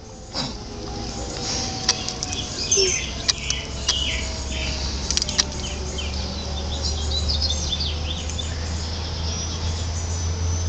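Birds chirping in short, scattered calls, with a distant siren's tone slowly falling away over the first few seconds.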